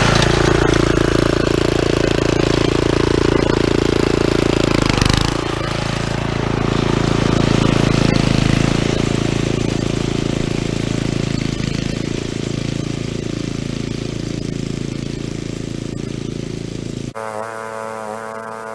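Small gas engine of a Craftsman-branded McLane self-propelled reel mower running steadily while mowing, with a brief dip in speed about five seconds in, growing fainter as the mower moves away. Music cuts in abruptly near the end.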